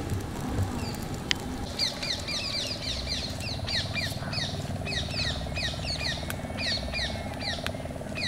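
Bird calling over and over with short, falling chirps, several a second, starting about two seconds in. A steady buzz runs underneath.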